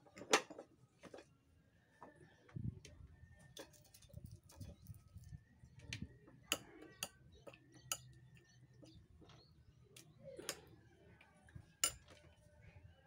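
Scattered light clicks and taps of a spoon against a plate and sauce bowl as food is served onto rice.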